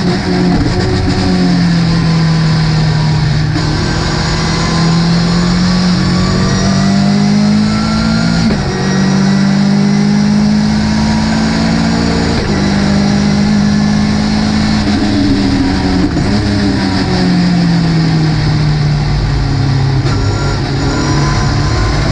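Ginetta GT5 race car engine running under load at a fairly steady pitch. The pitch jumps suddenly a few times at gear changes and sags slowly in between as the car lifts or brakes.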